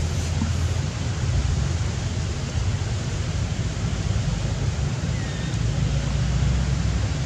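Steady wind noise on the microphone: a low rumble under an even hiss.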